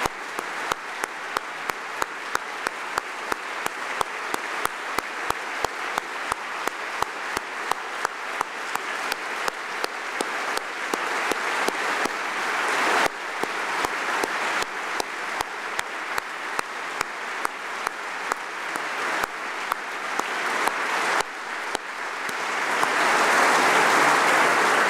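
Audience applause, with one person's claps close to the microphone standing out sharply at about two a second. The applause swells louder near the end.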